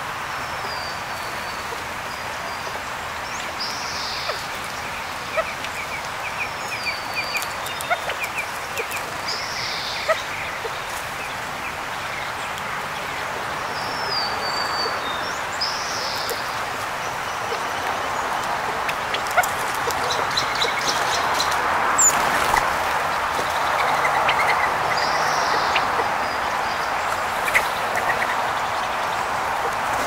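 Small birds calling with short high chirps and slurred whistles every few seconds over a steady outdoor hiss, with scattered light taps.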